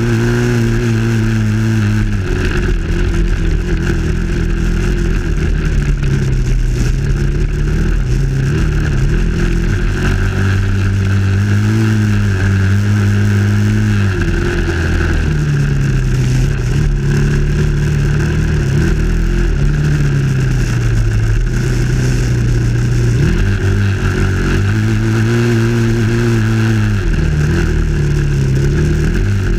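Dirt bike engine running under way, heard from on the bike. Its note rises and drops again and again as the rider works the throttle along the trail.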